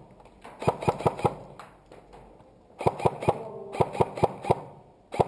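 Airsoft gun firing quick single shots, four or five a second, in several short strings with brief pauses between.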